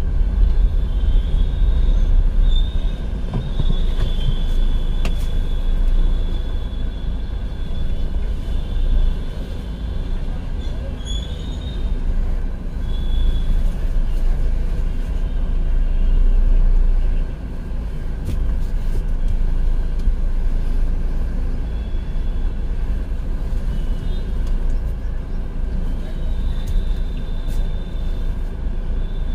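Car being driven, with a steady low engine and road rumble.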